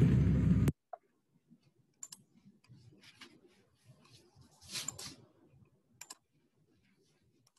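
The loud soundtrack of an animated video playing on a computer, cutting off suddenly under a second in, followed by a few scattered computer mouse clicks.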